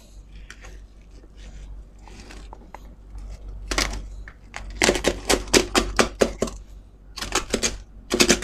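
Kitchen knife cutting through the crisp, brittle skin of a whole roast suckling pig: a faint scraping at first, then sharp crackles and cracks in several quick clusters from about four seconds in as the crackling breaks under the blade. The crackling is the sign of very crisp skin.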